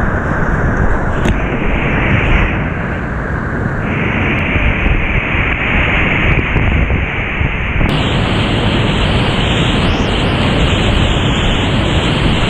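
Whitewater rapids rushing loudly and steadily around a kayak running a steep drop, picked up close by a GoPro on the boat's paddler.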